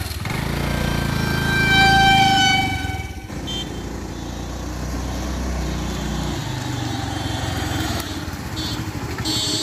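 Small motor scooter engine running as the scooter rides along, with a horn sounding once for about a second and a half near the start. About three seconds in the sound changes abruptly to the scooter's engine heard from the roadside as it comes closer.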